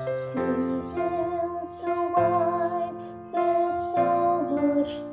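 A woman singing the Soprano 2 line of a slow, tender hymn-like song over piano accompaniment, holding notes with vibrato.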